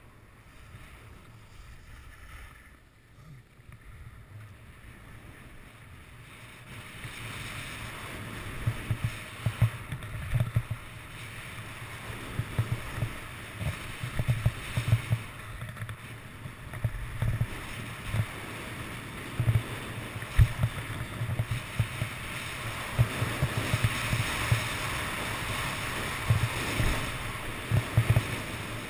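Skis sliding and scraping over packed snow, with wind rushing and buffeting the GoPro's microphone on a downhill run. It gets louder from about six seconds in as speed builds, with frequent low knocks from bumps in the piste.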